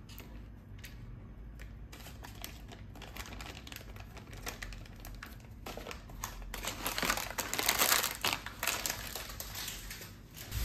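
Thin clear plastic packets crinkling as they are handled and gathered up. A few light clicks and taps come first, and the crinkling swells and is loudest shortly before the end.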